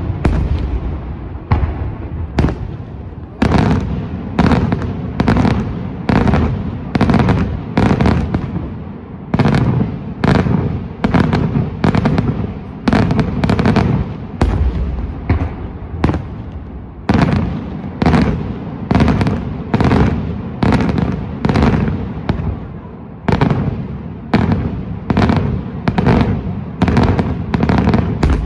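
Daytime fireworks display: a rapid, steady series of aerial shell bursts, about two bangs a second, each with a short echoing tail over a continuous low rumble.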